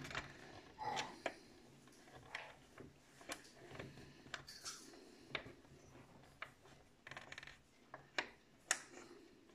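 Scattered light clicks and rubbing from hands handling the plastic hull and small parts of a 1/16-scale RC tank, about a dozen small knocks spread irregularly through.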